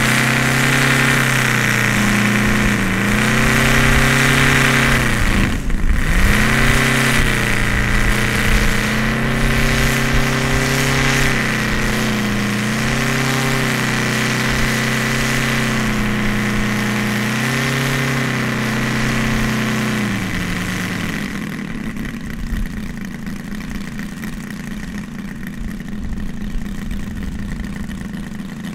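Seven-cylinder radial engine of a large RC model biplane running on the ground. Its steady note dips briefly in revs several times, with one sharp cut about six seconds in. About twenty seconds in the steady note drops away to a lower, rougher sound.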